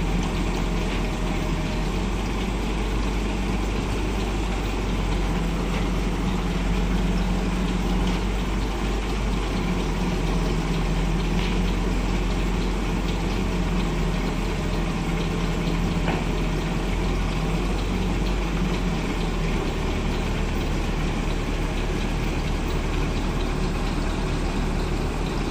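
A heavy vehicle's engine idling steadily: an even low hum that doesn't rev up or down.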